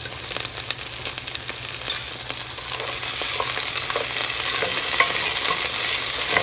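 Ivy gourd (tindora) pieces sizzling in hot oil in a pan, stirred with a plastic spatula that clicks and scrapes against the pan. The sizzle grows louder about three seconds in.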